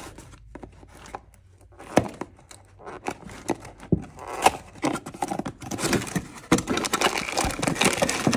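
Packaging of a new car part being handled and opened: plastic wrapping crinkling and rustling, with scattered knocks, busiest in the second half.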